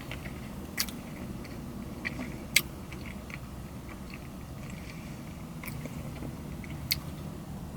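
Close-up mouth sounds of chewing a soft, cream-filled iced donut with star sprinkles, with a few sharp clicks, the loudest about a second in, near three seconds in and near the end.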